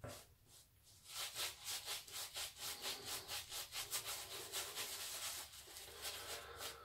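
Semogue 1305 boar-bristle shaving brush scrubbing lather over a stubbled face in quick, even strokes, about four a second, starting about a second in.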